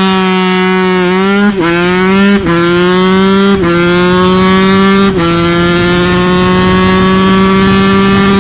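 Sherco SE 125 two-stroke single pulling hard through the gears. The revs climb and then drop sharply at four upshifts, about one and a half, two and a half, three and a half and five seconds in. After the last shift it holds high revs steadily.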